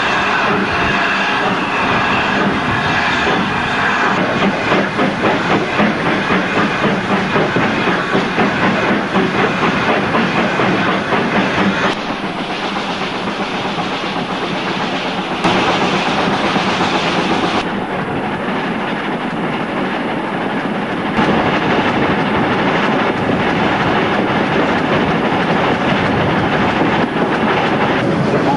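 Steam-hauled train running on the line, with a regular beat about twice a second and wheel clatter over the rails. The sound jumps abruptly in loudness and tone a few times.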